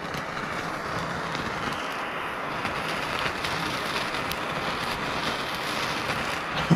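Handheld gas torch burning with a steady hiss as its flame sears sauce-topped yellowtail nigiri and the rice beneath, with a few faint crackles.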